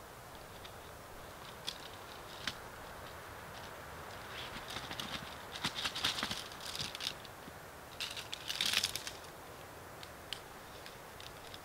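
Nylon sack rustling and crinkling, with light clicks and rattles, as tent poles are drawn out and handled. Two sharp clicks come early, then two longer bursts of rustling around the middle.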